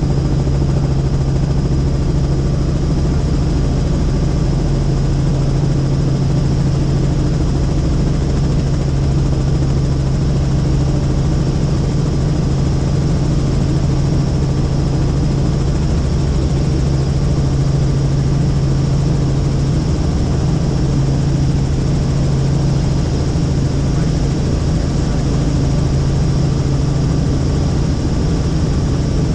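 Helicopter in level flight: the steady drone of its engine and rotors, a constant low hum over an even rushing noise.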